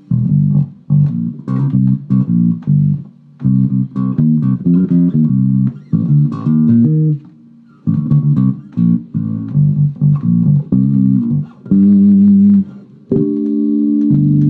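Electric bass guitar played through an amplifier: a riff of short, separate plucked notes with brief gaps, then a note left to ring from about thirteen seconds in.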